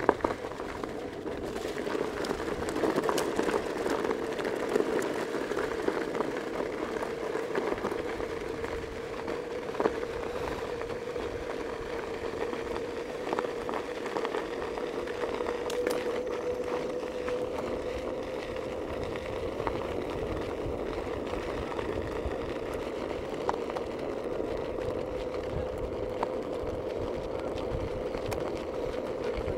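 A moving vehicle's motor running steadily, its hum rising slightly in pitch, over road noise, with scattered clicks and knocks.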